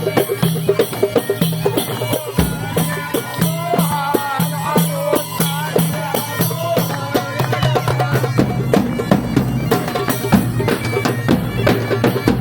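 Bagpipes playing a wavering melody over a steady drone, with a regular drum beat, in traditional folk style.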